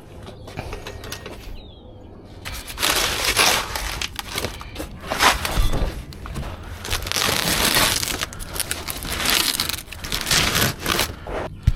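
Irregular crunching and rustling handling noise, loud and uneven, starting about two and a half seconds in and made up of many short scrapes and knocks.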